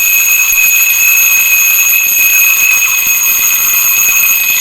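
Twin-bell table alarm clock ringing loudly and without a break, its hammer striking the two metal bells in one steady high ring.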